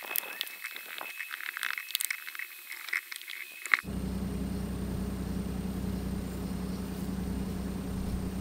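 A paintbrush scratching in short strokes as it spreads a base coat onto the camper's interior wall panel, ending in a sharp click a little under four seconds in. A steady low hum follows.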